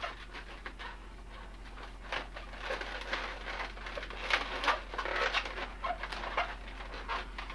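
Latex modelling balloon squeaking in irregular short bursts as it is twisted, rubbed and pinched by hand.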